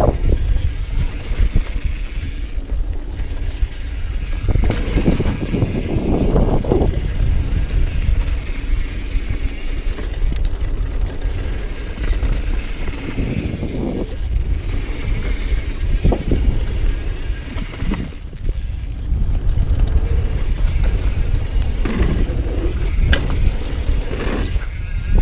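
Mountain bike descending a dirt trail: steady wind rumble on the rider's camera microphone with tyre noise, broken by scattered knocks and rattles from the bike.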